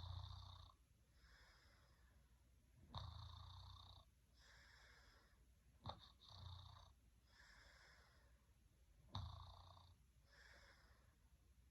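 A sleeping person snoring: a rough snore on each breath in, about every three seconds, each followed by a softer breath out.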